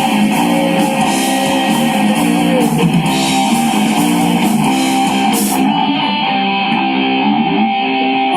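Live rock band playing, led by electric guitars picking a repeating riff. The high cymbal-like wash cuts out about two-thirds of the way through, leaving the guitars ringing on.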